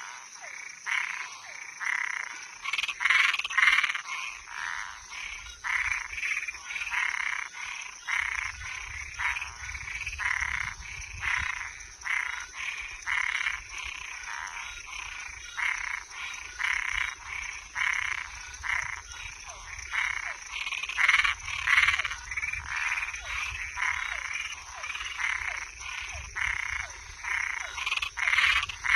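A chorus of frogs and treefrogs calling, with short calls repeating about once or twice a second and several callers overlapping.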